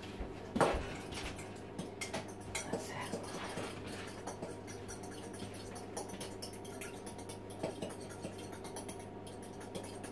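Fork beating an egg in a small cup: a long run of light, quick clicks of the fork against the cup. A single thump about half a second in.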